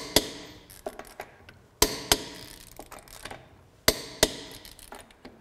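GEARWRENCH 120XP click-style torque wrench clicking as it reaches its set torque on truck lug nuts: three sharp double clicks about two seconds apart, each pair about a third of a second apart, with fainter ratchet ticks between.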